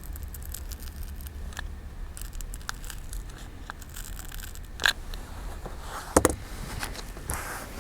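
A pry tool scraping and ticking against an iPhone 5's case and battery as the glued battery is worked loose. There is a sharp click just before the five-second mark and a louder double click about six seconds in, over a low hum.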